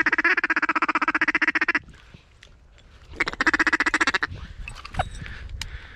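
Duck call blown in two fast, rattling runs of a mallard feeding chuckle: the first lasts almost two seconds, and the second, about a second long, starts a little after the three-second mark.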